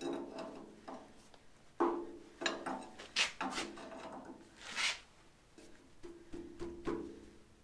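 A small steel pry bar levering and scraping around the metal-cased halfshaft oil seal of a Massey Ferguson 35 to work it out of the axle housing. It makes a series of short squeaky metal scrapes, with a couple of sharper scratches in the middle.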